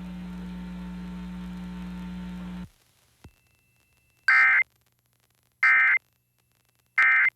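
A steady electrical hum left over from the relayed test message, cutting off suddenly about two and a half seconds in. Then three short, identical digital data bursts about 1.3 seconds apart: the Emergency Alert System end-of-message (EOM) code closing the required monthly test.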